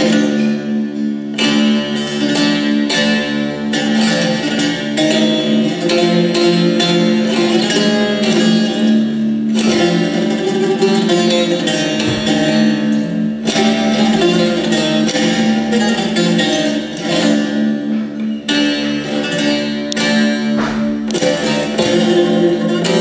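Bağlama (long-necked Turkish lute) playing a folk tune: quick plucked melody notes over a steady ringing low note.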